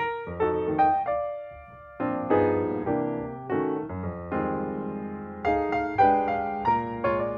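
Background music: a piano or electric piano playing a gentle melody over chords, with a short lull about a second and a half in.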